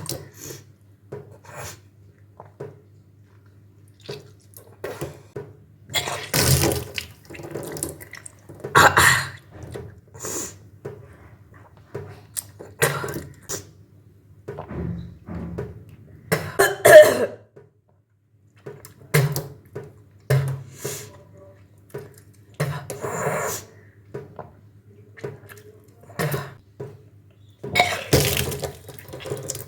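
A person retching and vomiting up the water they drank during kunjal kriya, the yogic stomach-cleansing practice. The water comes up in repeated gushes every few seconds and splashes down, with coughing and gagging between the gushes.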